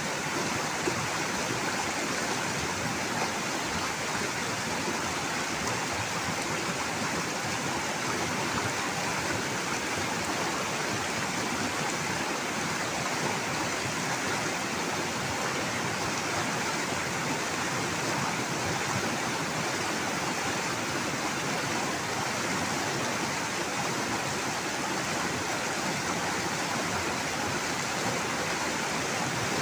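Fast, muddy river water rushing over rocks and small rapids: a steady, unbroken rush.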